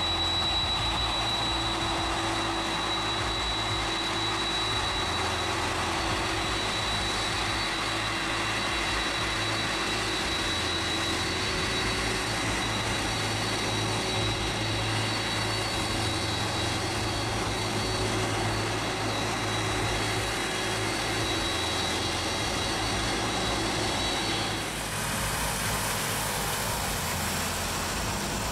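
Boeing 747-400's four GE CF6-80C2B1F turbofans running at low taxi power: a steady rushing jet noise with a high whine. About 25 s in the sound changes, and the whine gives way to a brighter hiss.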